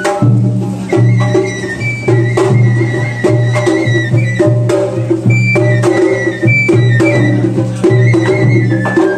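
Japanese festival hayashi: a shinobue bamboo flute plays a high, stepping melody over repeated taiko drum strikes and sharp clacks.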